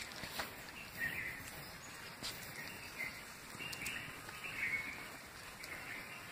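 Quiet forest ambience with faint, short bird calls now and then and a few light clicks.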